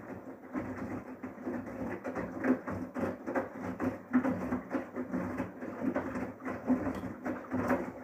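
Samsung WW80CGC04DAELE front-loading washing machine tumbling a wash load in its colours 40°C cycle: water sloshing and wet laundry splashing and dropping in the drum in an irregular churn, over a steady low hum.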